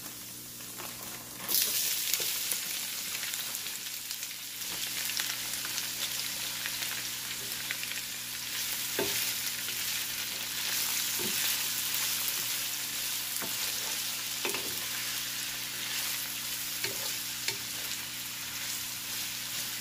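Sliced onions dropped into hot oil start sizzling about a second and a half in, then fry with a steady sizzle as they are stirred with a wooden spatula, with a few light knocks of the spatula against the pan.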